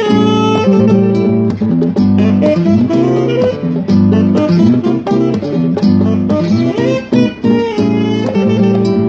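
Instrumental jazz tune with a saxophone playing the melody in long, sliding notes over guitar accompaniment and a steady drum beat.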